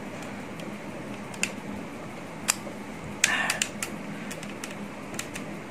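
Light clicks and a short scrape of model parts as a tail elevator is pushed into its slot in the fuselage of a 1:200 Airbus A380 model: scattered single clicks, with a quick cluster of clicks and scraping about three seconds in. The part is stiff and hard to push in. A steady low hum runs underneath.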